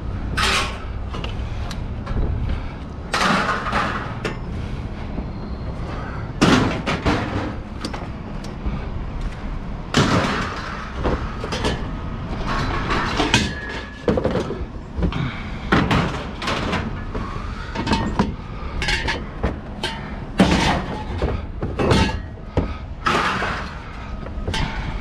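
Scrap metal from a discarded grill clanking and banging as it is handled, with many separate knocks and rattles, some ringing briefly, over a steady low hum.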